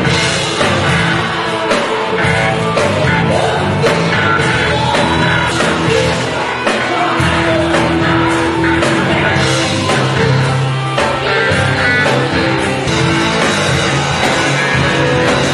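Live rock band playing loud and without a break: electric guitars, one of them a Charvel, over drums, with singing.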